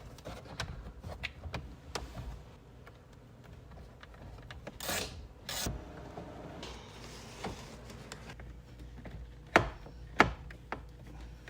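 Hands working on car interior trim: scattered clicks, rubbing and scraping, with two longer scraping strokes about halfway and two sharp knocks near the end.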